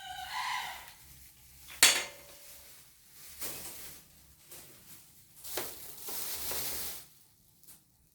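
Parts of a mini rack being handled: a short squeak at the start, a sharp click just under two seconds in, then bursts of scraping and rustling, the longest near the end.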